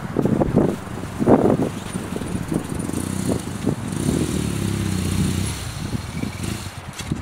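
Motorcycle engine running at low speed, its revs rising and easing, with a few loud rustling knocks in the first couple of seconds.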